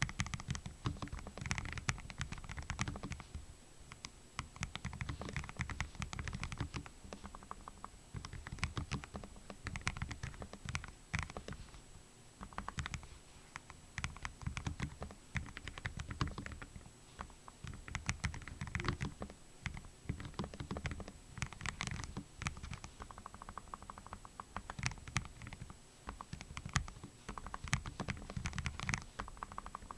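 Continuous typing on a Lofree Flow gasket-mounted low-profile mechanical keyboard with Kailh Full POM switches: a fast, steady run of keystroke clacks with a few brief pauses.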